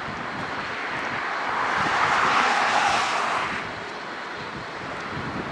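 Road traffic noise swelling as a vehicle goes by, loudest about two to three seconds in, then easing back to a steady background rush.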